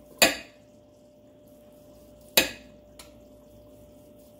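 Metal forks clinking against a dish while pulling apart a cooked pot roast: two sharp clinks about two seconds apart, with a fainter tick between them.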